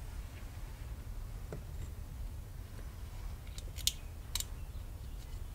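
A few sharp metallic clicks of small steel parts being worked by hand onto the gear cluster of a Puch ZA50 moped engine: one faint click, then three or four in quick succession past the middle. A steady low hum runs underneath.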